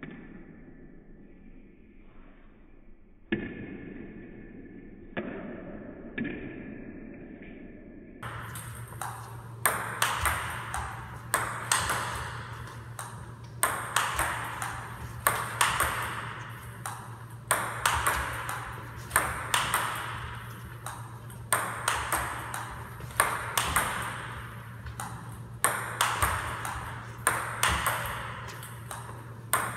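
Table tennis ball being smashed over and over, about every two seconds: each stroke is a quick cluster of sharp clicks as the ball strikes the paddle and bounces on the table. For the first eight seconds or so the sound is muffled and fainter. After that a steady low hum runs underneath.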